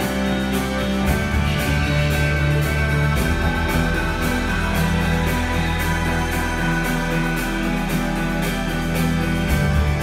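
Recorded music played back over a pair of floor-standing hi-fi loudspeakers, heard in the room: held bass notes that change every second or two under a regular beat.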